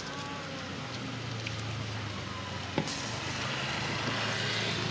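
A motor running with a steady low hum, with one sharp click about three seconds in.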